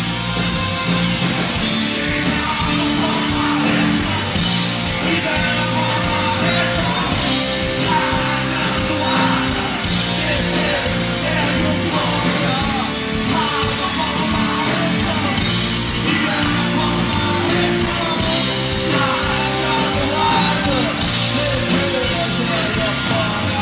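Live rock band playing: electric guitars, bass and keyboards with a singer's voice over the top.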